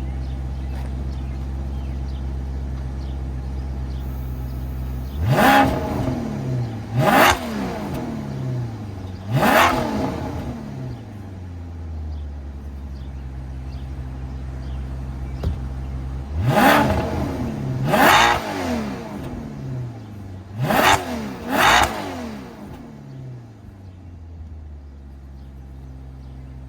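Bone-stock 2006 Maserati Quattroporte's Ferrari-derived 4.2-litre V8, which has a cross-plane rather than a flat-plane crank. It idles steadily, then is revved seven times, each rev rising sharply and falling back to idle. There are three revs about five seconds in, a stretch at idle, then four more, before it settles back to idle.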